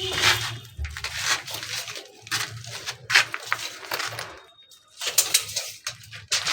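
A run of irregular clicks and knocks from hard objects being handled, pausing briefly in the second half.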